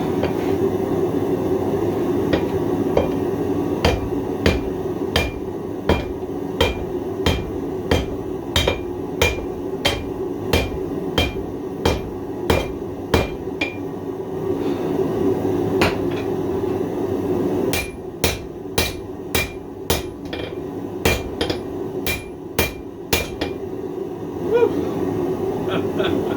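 Hand hammer with a face radiused in both directions striking hot 1/4-inch 1095 carbon-steel plate on an anvil: a long series of ringing blows, about two a second, that stops for a few seconds midway and then resumes. A steady drone runs underneath.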